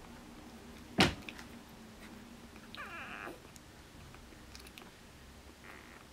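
Four-day-old Border Collie puppies making a short, thin, high squeaking whine about three seconds in, and a fainter one near the end. A sharp click about a second in is the loudest sound.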